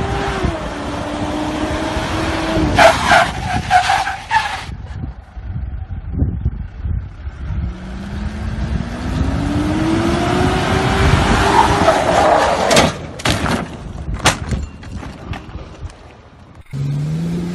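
SUV engine running and revving, its pitch rising as it speeds up and turns on pavement, with hard wind noise on the microphone. Sharp bangs come in clusters about three seconds in and again about thirteen seconds in.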